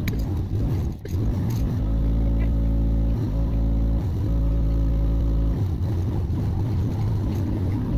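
Kioti CK2610 compact tractor's three-cylinder diesel engine running, pulling harder and steadier for about four seconds from about two seconds in, as the tractor is worked out of deep mud.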